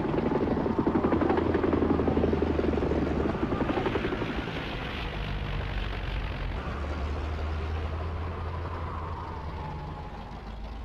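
Aircraft engines droning steadily, with fast chopping pulses early on and a whine that slowly drops in pitch in the second half as the sound eases off.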